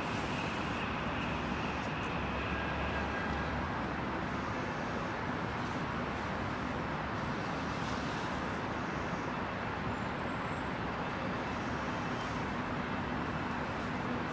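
Steady city traffic noise, an even hum with no distinct events.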